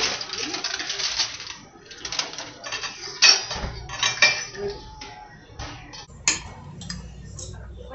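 Aluminium foil crinkling as it is handled over a roasting dish for the first second and a half, followed by several sharp clinks and knocks of dishware and utensils.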